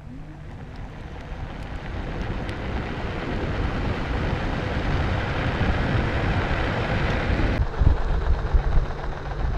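Backfire Ranger X1 electric skateboard rolling on pavement: a rough rubber-on-road rumble and rush that grows steadily louder, with the upper hiss dropping away sharply about three-quarters through. The uneven scrubbing comes from the worn stock rear tires, a noise common on the X1; the new front tires no longer make it.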